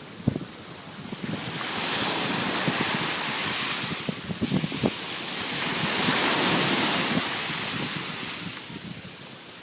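Pacific Ocean surf: waves breaking and washing up the beach, the rush swelling and fading twice, with wind buffeting the microphone.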